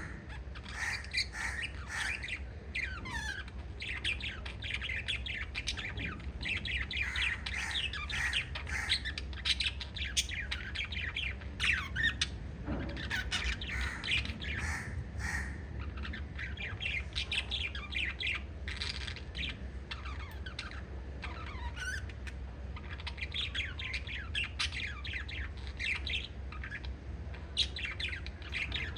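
Several small pet parrots chirping and squawking in rapid, overlapping calls, with a few brief lulls, over a steady low hum.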